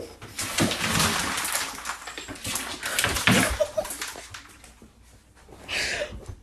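Dog scuffling and rustling about, with a few short, high whimpers about three and a half seconds in.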